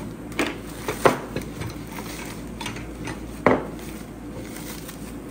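Plastic wrap crinkling as it is cut with a utility knife and pulled off a metal part, with a few sharp knocks as things are set down on a wooden bench.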